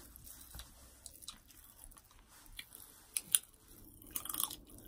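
Faint chewing and crackling of Pop Rocks candy in the mouth: scattered sharp little pops, the loudest a little past three seconds in, with a small cluster of crackles near the end.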